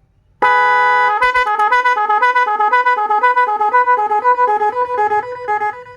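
12-volt multi-tone telolet snail horn sounding its first mode, 'gema': one held note about half a second in, then a quick run of two alternating notes, about four a second, until near the end.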